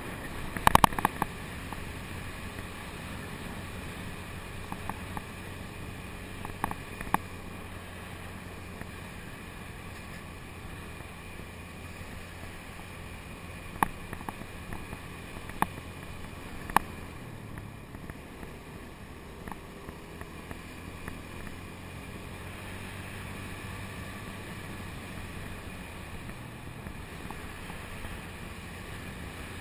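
Small scooter engine running steadily at cruising speed, heard from a GoPro on the bike. A handful of sharp knocks and rattles cut through it: a cluster about a second in, where the road is rough and patched, and a few single ones around the middle.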